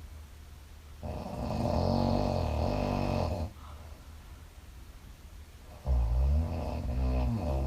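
A woman snoring in her sleep: two long snores about five seconds apart.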